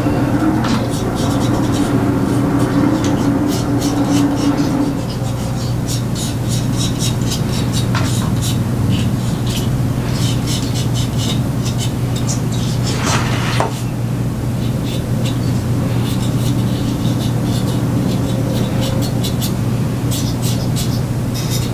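Fingers rubbing and handling a plastic model kit, with many small scratchy clicks of plastic parts, over a steady low hum.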